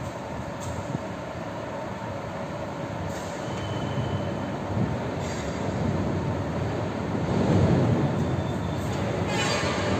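Continuous rumbling noise that grows louder toward about eight seconds in, with a short high hiss near the end.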